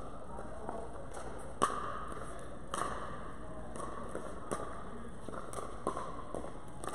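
Pickleball paddles striking a hollow plastic ball in a rally: a series of sharp pops at irregular intervals, the loudest about a second and a half in, each ringing briefly in the large indoor court hall.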